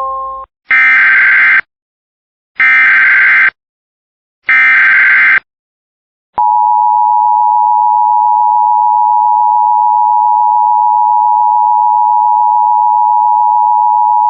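Emergency Alert System header: three short bursts of digital data screech (the SAME header), each about a second long and a second apart. Then the EAS two-tone attention signal, a steady loud two-pitched tone held for about eight seconds, which signals that an alert message follows.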